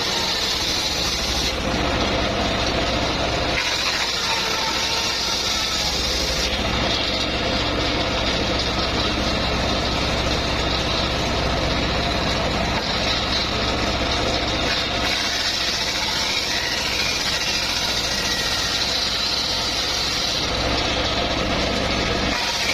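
Engine of a homemade circular sawmill running steadily as mahogany logs are sawn, with a higher whine that fades and returns a few times.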